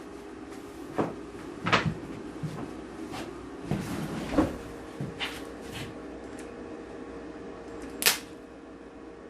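Scattered knocks and clunks of metal tools and parts being handled, about half a dozen separate hits with the loudest about eight seconds in, over a steady faint hum.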